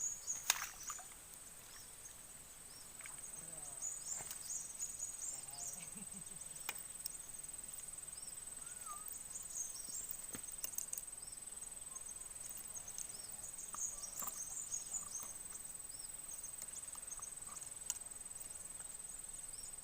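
Insects trilling steadily at one high pitch, with many short high chirps and a few faint clicks over it.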